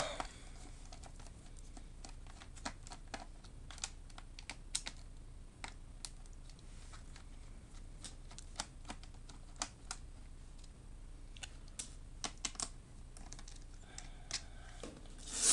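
Scattered small clicks and ticks of a screwdriver working screws out of a laptop's plastic bottom case, one screw after another.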